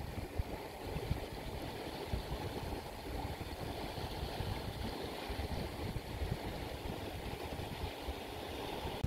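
Wind buffeting the microphone: an uneven low rumble over a steady hiss.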